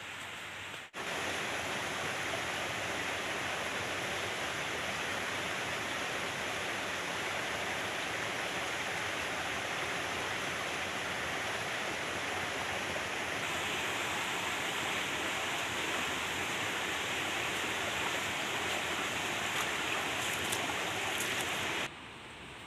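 Steady rushing noise of running water. It starts abruptly about a second in and drops away suddenly near the end.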